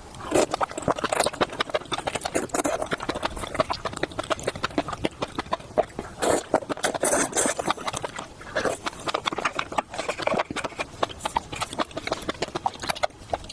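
Close-miked eating sounds: someone chewing seafood, a dense, irregular run of clicks and crackles.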